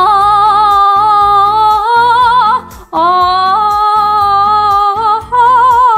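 A woman's voice singing held notes with vibrato, without words, over soft backing music. Two long notes are split by a short break, and shorter wavering notes follow near the end.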